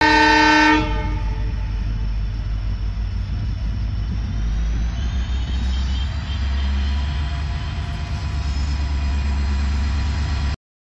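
A locomotive horn sounds for under a second, then a locomotive runs with a steady low rumble and a faint high whine that rises in pitch about halfway through. The sound cuts off suddenly near the end.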